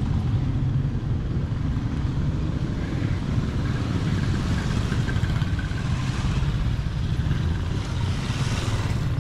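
Motorcycle tricycles (motorbikes with sidecars) running past at low speed with a steady low engine rumble. One gets louder as it comes close near the end.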